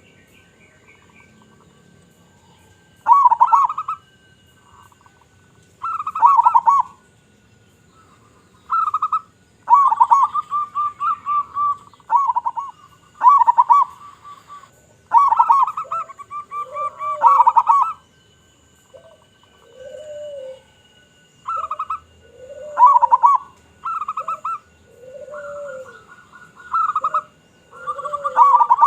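Zebra doves (perkutut) cooing: repeated short phrases of rapid, trilling coos, with a second, lower, arched cooing call joining in about halfway through.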